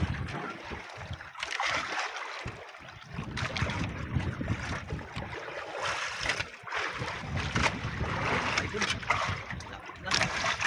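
Sea water lapping and splashing against the hull of a small outrigger boat, uneven and rising and falling, with a few short knocks.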